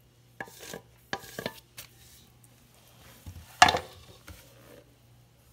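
Wooden spoon scraping filling out of an aluminium pot in a few short scrapes, then one sharp knock of spoon against metal about three and a half seconds in, followed by lighter clatter.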